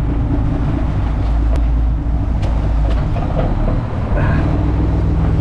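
Lobster boat's engine running steadily underway, a loud low drone, with a few short knocks from the wooden traps being handled on deck.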